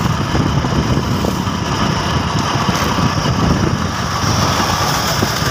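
Motorcycle running steadily at road speed, with wind rushing over the microphone in a choppy, low rumble.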